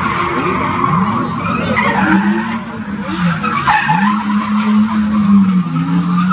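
BMW 3 Series drift cars sliding through a corner one after another, tyres screeching. The engines rev up and down, held high for about a second midway.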